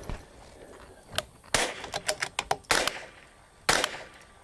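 .22 LR rifle firing a string of sharp single shots about a second apart, with fainter clicks between them.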